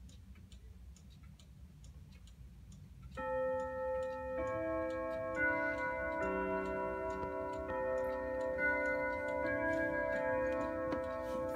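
Daneker grandmother clock ticking steadily. About three seconds in it starts its hour chime: a melody of ringing notes about a second apart, each one carrying on under the next.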